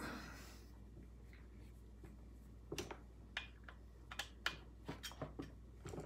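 Faint handling noise of hands working on a chainsaw's carburetor and throttle parts: a brief rustle at the start, then about ten irregular small clicks and taps in the second half.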